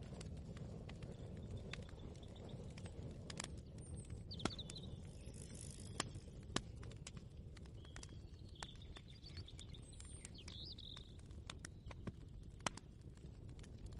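Ambient kitchen soundscape: a steady low rumble with scattered light clicks and knocks, and a few short bird chirps in the middle.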